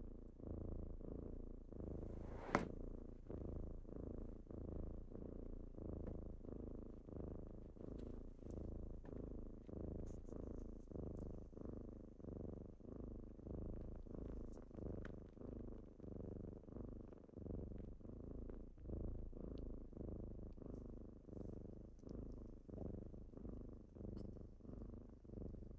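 Kitten purring close up, a low rumble that swells and fades in a steady rhythm with each breath in and out. A single sharp click about two and a half seconds in.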